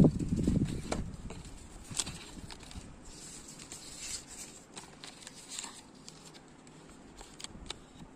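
Handling of earbud packaging and case: a dull thump at the start, then scattered sharp clicks and light plastic rustling, with two quick clicks near the end.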